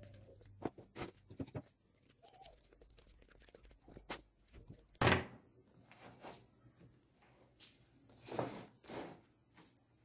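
Glued wooden wedge blocks being handled and pressed together into a disc on a workbench: scattered wooden knocks and clicks, with one sharp knock about five seconds in and two duller, longer sounds near the end.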